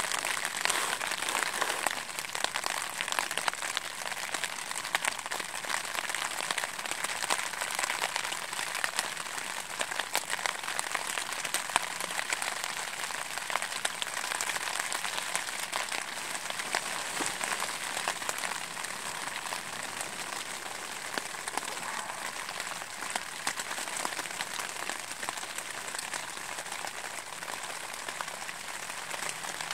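Rain pattering on the Dyneema fabric of a Hyperlite Mountain Gear UltaMid 2 pyramid shelter, heard from inside: a dense, steady hiss of countless small drop hits, easing slightly after the first couple of seconds.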